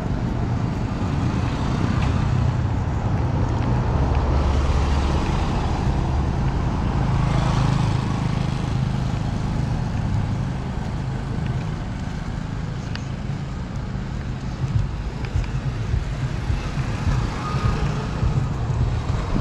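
Street traffic noise: motor vehicle engines running and passing, with a steady low hum that swells a few seconds in and again near the middle.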